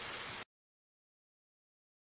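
Steady hiss that cuts off abruptly about half a second in, followed by complete digital silence.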